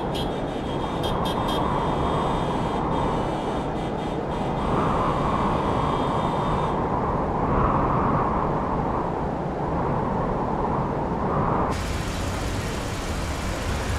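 Steady city traffic noise: a continuous low rumble with a rushing hiss that swells and eases every couple of seconds.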